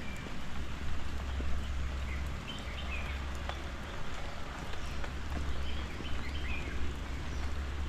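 Steady rain falling, with a few short, high bird chirps, about two and a half seconds in and again around six seconds, over a steady low rumble.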